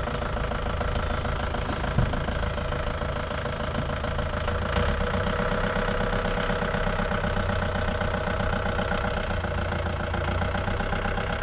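Camper van engine running steadily at idle, with a fast even low pulse and a single brief knock about two seconds in.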